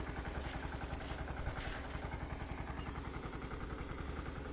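Tractor engine running steadily to power a tractor-mounted sprayer pump during spraying, with a rapid, even pulsing beat.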